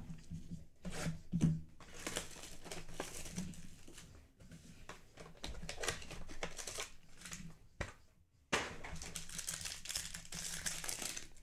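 Foil wrapper of a Mosaic football card pack being torn open and crinkled by hand: irregular crackling and rustling, with a brief pause about eight seconds in.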